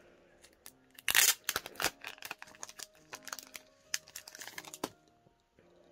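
Packaging crinkling and rustling with sharp clicks as a photo card set is unwrapped by hand, loudest about a second in, over soft background music.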